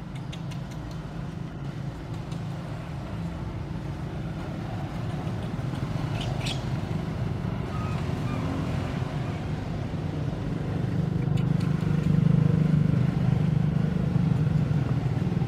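A motor vehicle engine running steadily with a low hum, growing louder over the last few seconds.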